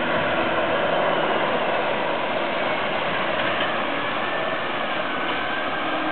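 Fire alarms sounding continuously, loud and steady.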